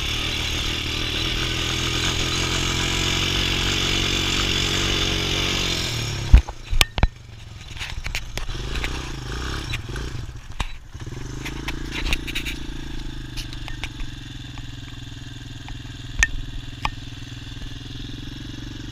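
Quad ATV engine running steadily at speed, with wind noise on the bike-mounted microphone. About six seconds in the sound breaks off with a few sharp, loud knocks, and a quieter, steady engine drone follows.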